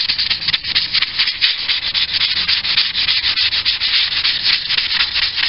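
Hand-held Scotch-Brite denibbing pad scrubbed in rapid back-and-forth strokes over a painted steel baseplate: a steady scratchy rubbing that keys the surface and rounds off the edges ready for primer.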